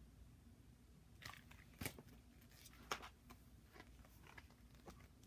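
Faint paper rustling and crackling as a hardcover picture book is handled and its page turned, with two sharper clicks about two and three seconds in.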